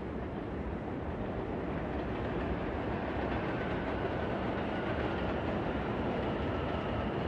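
City ambience heard from a rooftop at night: a steady, dense rumble and hiss of the city that slowly grows louder, with faint thin high tones in the middle.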